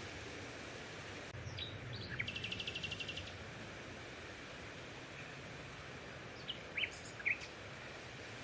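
Outdoor ambience: a steady hiss with a few short bird chirps and, about two seconds in, a rapid bird trill lasting about a second.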